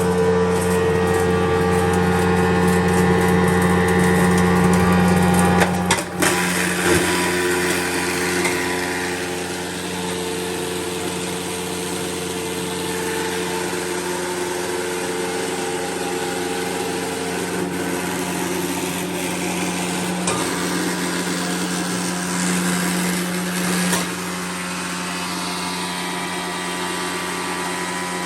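Cumberland 5 HP plastic granulator running, with a steady electric-motor hum and the whir of its cutter rotor. About six seconds in come a few knocks and a rougher rattling noise as plastic bottles are chopped, with more single knocks near twenty and twenty-four seconds.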